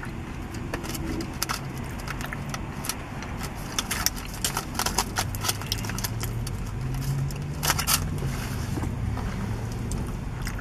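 Close-up eating sounds: the aluminium foil wrapper of a burrito crinkling as it is handled, with chewing and mouth clicks, the crackling thickest in the middle.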